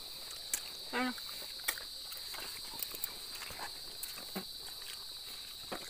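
Steady high-pitched drone of insects in the surrounding brush, with scattered small clicks and a brief murmured voice about a second in.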